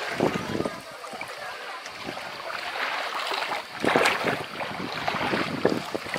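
Footsteps wading through shallow water over pebbles, with splashes and water lapping at the shore, loudest about four seconds in; wind buffets the microphone.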